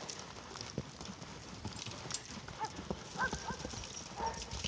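A horse's hooves clip-clopping in an uneven rhythm as the mare moves around, with a few short high squeaks about three seconds in.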